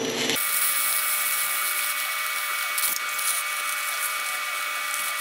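TIG welding arc: a steady, high-pitched buzzing hiss that starts about half a second in. The arc is burning with no shielding gas, the gas bottle's controls having been turned off, which leaves the tungsten tip needing to be fixed.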